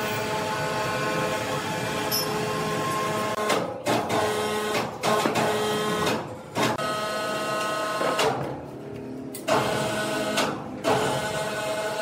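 Sawmill machinery running with a steady whine of several held tones, broken off abruptly a few times between about four and eleven seconds in.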